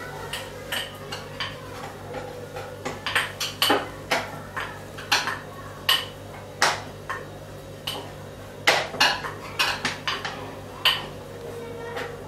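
Fingers patting and pressing thalipeeth dough flat on a steel board, making irregular sharp taps and clicks against the metal, several a second. A steady low hum runs underneath.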